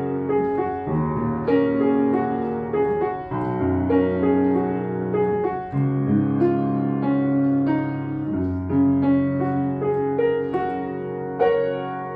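Upright piano played with both hands: a slow piece in sustained chords over a bass note that changes every second or two. A chord struck near the end is left ringing and fading.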